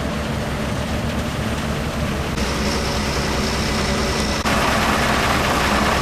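Heavy diesel engine of a Komatsu hydraulic excavator running steadily. A louder rushing noise comes in about four and a half seconds in.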